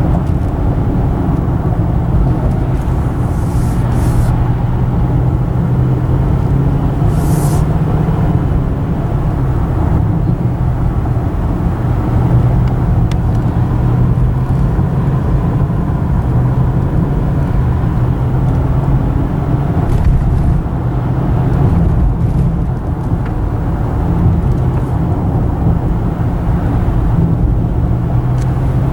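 Car driving along, heard from inside the cabin: a steady engine drone and tyre-road noise, with two brief high hisses about four and seven seconds in.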